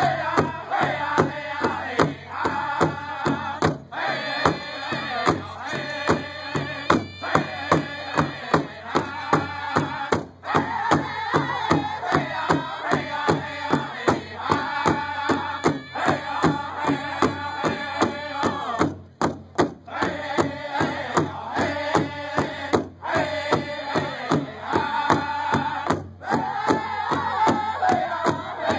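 Powwow drum group singing together in high, strained voices over a steady, even beat struck in unison on one large shared powwow drum with padded drumsticks.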